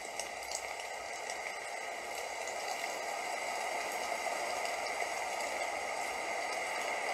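Steady rain: an even hiss with scattered small ticks of drops.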